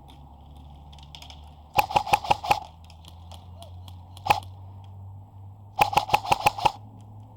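Airsoft gun firing a rapid burst of about seven shots, then a single shot, then another rapid burst of about seven shots.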